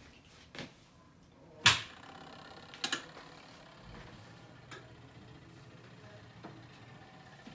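A few sharp handling clicks and knocks, the loudest about one and a half seconds in and a quick double knock near three seconds, with a low steady room hum between them.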